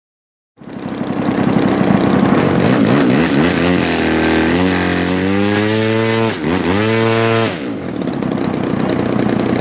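Large-scale RC aerobatic plane's petrol engine and propeller running, starting suddenly about half a second in. Between about 4 and 7.5 seconds it revs up and back down twice, a ground run-up on the runway.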